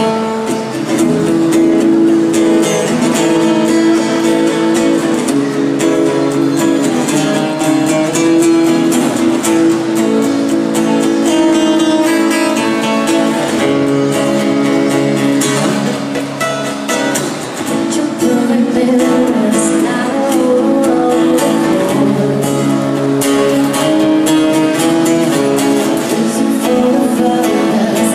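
Live acoustic guitar music: chords strummed and picked steadily.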